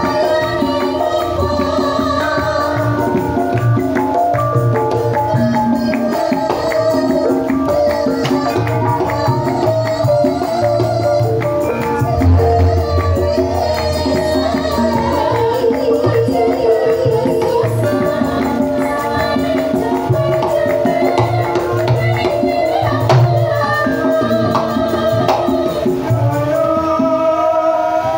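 Javanese gamelan music accompanying a wayang kulit performance. Held melodic notes sound over steady percussion strokes and a low drum beat.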